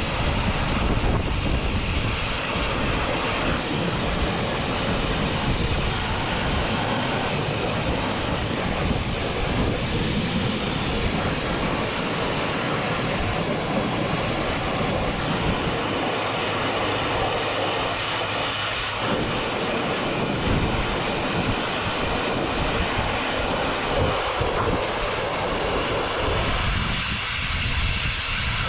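High-pressure washer jet spraying water onto farm machinery, a loud steady hiss and spatter with the washer's motor running underneath.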